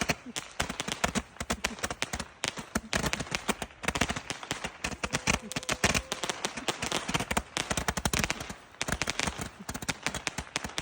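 Chinese firecrackers going off in a rapid, continuous string of sharp bangs, many per second, with a few brief breaks, one near the start and another about nine seconds in.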